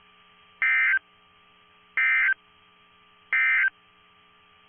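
Three short bursts of Emergency Alert System SAME digital data tones, about a second apart. These are the end-of-message code on NOAA Weather Radio, which closes the alert broadcast.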